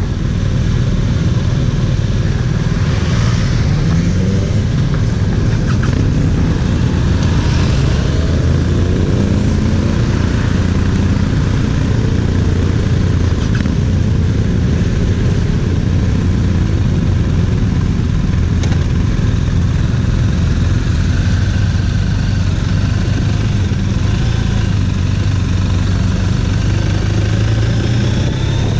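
BMW R1250 RT's boxer twin engine running as the bike pulls away and gets under way, the revs climbing several times in the first ten seconds, then holding a steadier drone while riding.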